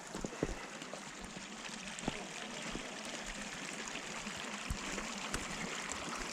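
Blizzard wind blowing with a steady hiss, broken by a few faint knocks.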